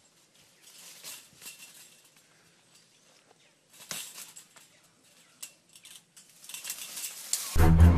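Faint scattered clicks and rattles of a chain-link fence as an alligator climbs over it, its claws gripping the wire. Music with a heavy bass starts near the end.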